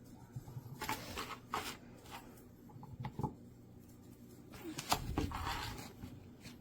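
Handling noises: a scatter of light clicks and knocks, with a short stretch of rustling a little before the end.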